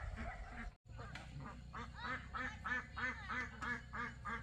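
Ducks quacking in a fast, even run of short quacks, about four a second, starting about a second in.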